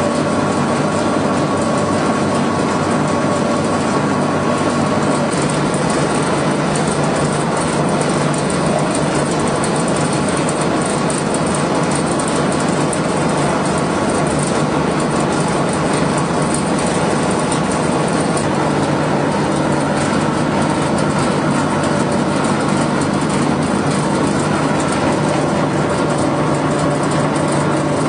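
Small pet-feed pellet mill running under load, its electric motor driving the die as feed is pressed into pellets: a loud, steady machine noise with a constant hum and a steady higher tone.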